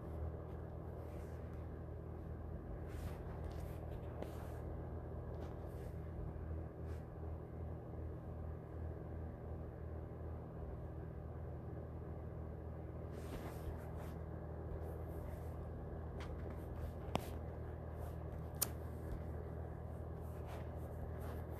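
Steady low hum of room noise picked up by the phone's microphone, with a few soft rustles and taps from handling the phone, and two sharp clicks about a second and a half apart near the end.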